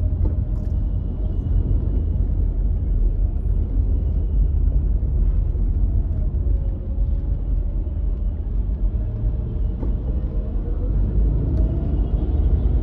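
Steady low rumble of a car driving in slow city traffic, heard from inside the cabin, with a faint tone that dips and rises again about six seconds in.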